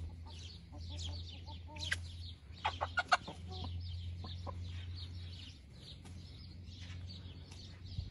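Hens clucking, with a quick run of loud clucks about two and a half to three seconds in. Steady high chirping of small birds and a low hum go on behind.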